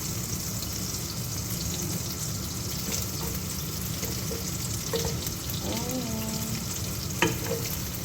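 Chopped onion sizzling in melted butter in a wok while being stirred, a steady frying hiss, with two sharp clacks of the utensil against the pan near the end.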